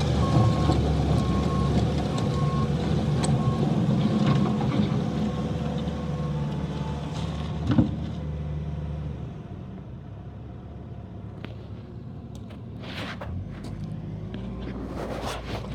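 Bobcat T870 compact track loader's diesel engine running, with its backup alarm beeping in an even rhythm for the first few seconds. The engine sound drops quieter about nine seconds in, and a few sharp knocks come near the end.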